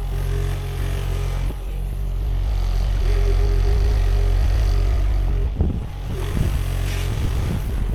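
Sany SY50U mini excavator's diesel engine running steadily under digging load, with a hydraulic whine that comes and goes. A few short knocks sound near the end.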